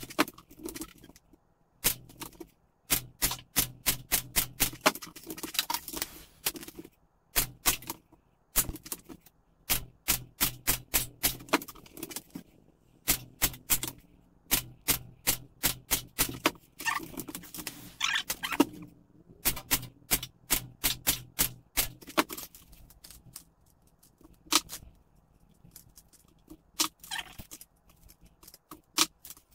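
Sharp air-rifle shot cracks in quick runs of several a second, broken by short pauses.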